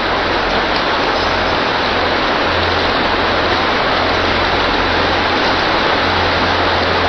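Candy flow wrap packaging machine and its feed conveyor running: a steady, even mechanical noise with a low hum underneath.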